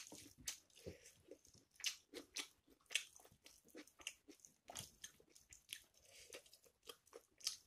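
Faint eating sounds from a person eating rice and chicken curry by hand: chewing with an irregular string of short, wet mouth clicks and smacks, several a second.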